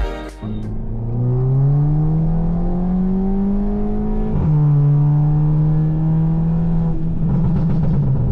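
VW GLI's tuned 2.0-litre turbocharged four-cylinder accelerating hard, its note climbing for about four seconds, then dropping at an upshift and pulling again in the next gear. Near the end the note turns rough and crackly as the exhaust crackles on lift-off, the sound the Stage 1 tune is set up to make.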